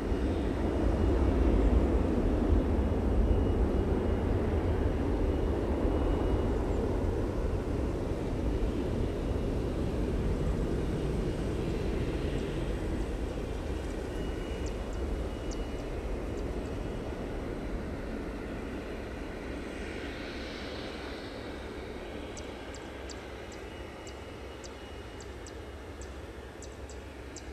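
Boeing 767-300ER freighter's twin jet engines at high thrust as it rolls away down the runway, loudest about two seconds in and then fading steadily as it draws away.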